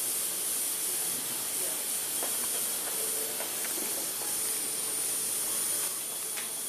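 Dental suction hissing steadily during orthodontic chairside work, with a few faint clicks.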